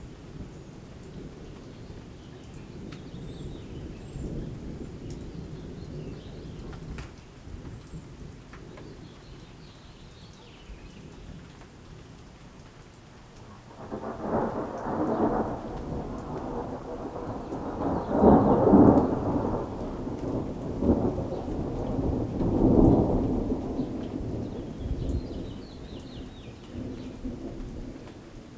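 Thunder during a rainstorm. A low, distant rumble runs through the first half. About halfway through a loud peal breaks out suddenly, swells in three peaks and dies away near the end, with rain falling steadily underneath.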